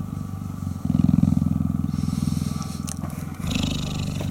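Adult cheetah purring contentedly while suckling on a human thumb: a low, rapid, continuous rumble that grows louder about a second in and softens again near the end.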